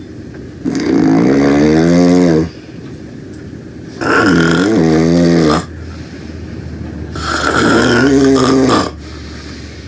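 Loud snoring: three long, fluttering snores, each about a second and a half, coming roughly every three seconds with quieter breathing between them.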